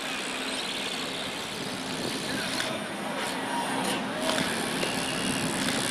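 Steady outdoor rushing noise with a low steady hum, like distant traffic or machinery, and faint distant voices from the practice field.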